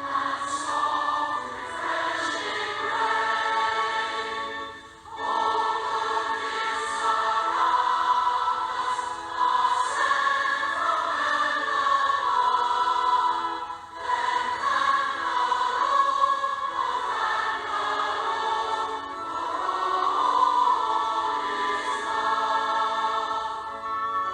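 A choir singing a hymn in sustained phrases, with short breaks between phrases about 5 and 14 seconds in.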